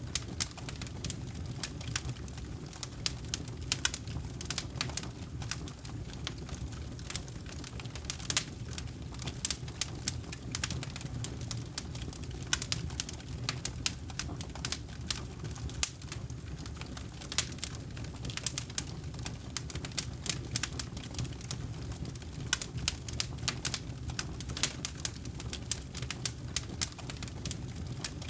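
Wood campfire crackling, with frequent irregular sharp pops and snaps over a steady low rumble of the burning fire.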